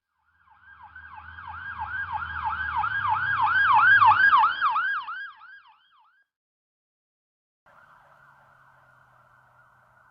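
Emergency vehicle siren in a fast yelp, about four rising sweeps a second, over a low engine rumble, growing louder to a peak and then fading away as the vehicle passes. Near the end a faint, steady, buzzing sound begins.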